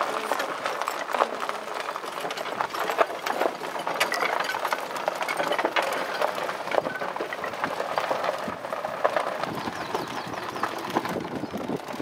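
Golf cart running along a path, its motor going steadily under a dense clatter and rattle from the cart, with wind on the microphone.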